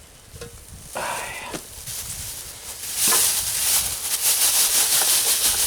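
Chopped onion and chilli frying in a hot pan: loud sizzling with crackling that starts suddenly about three seconds in, as the food goes into the hot fat.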